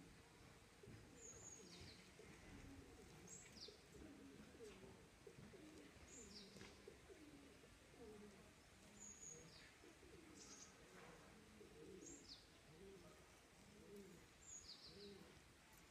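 Faint bird calls: low, repeated arching calls and short high chirps about every two seconds.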